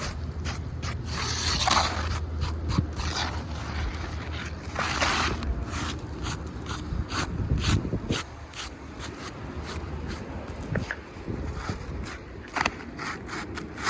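Asphalt roof shingles being scraped and pried at with a hand tool: irregular scrapes and sharp clicks. The old shingle is being worked loose for a repair. A low rumble sits under the first half.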